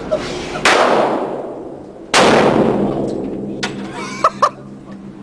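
Two gunshots about a second and a half apart, each followed by a long echoing decay, then a few faint clicks.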